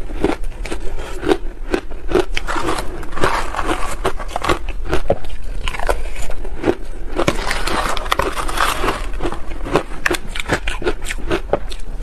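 Close-miked chewing of soft shaved ice dusted with matcha powder: a quick, uneven run of small crisp crunches, thickening into denser crunching a few seconds in and again in the second half.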